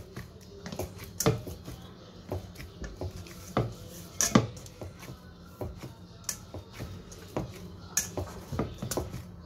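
Hand kneading a soft flour dough in a nonstick pan: irregular soft knocks and thumps of hand and dough against the pan, about one or two a second, the loudest a little past four seconds in.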